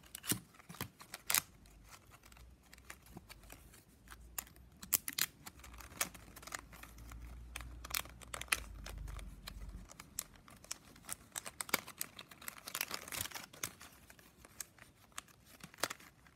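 Stiff 9 mm plastic strapping band crinkling and clicking as it is threaded, pulled and tucked through a woven piece by hand, in irregular sharp ticks and scrapes. A faint low rumble runs underneath for a few seconds midway.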